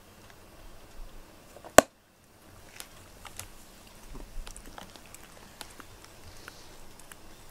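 Cat grooming itself, its tongue licking its fur in a run of small wet clicks. A single sharp click sounds just under two seconds in.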